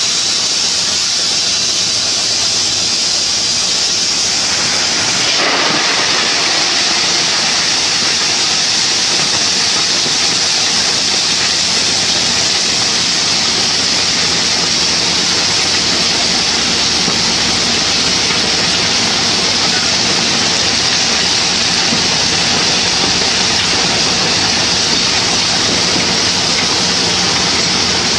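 Dump semi-trailer raising its coal-loaded tipper body: a loud, steady rushing hiss with no change in level.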